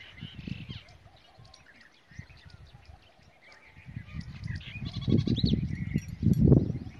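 Small birds chirping and twittering throughout, with wind gusting on the microphone, the gusts growing much louder about four seconds in.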